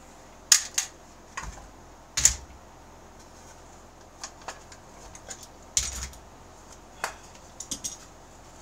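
One-handed bar clamps being released from glued wooden trays and handled on a workbench: about a dozen irregular sharp clicks and clacks, with a few duller knocks. The loudest come about half a second and two seconds in.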